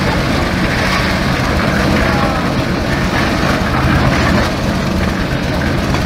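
Concrete mixer running steadily, its engine turning the drum.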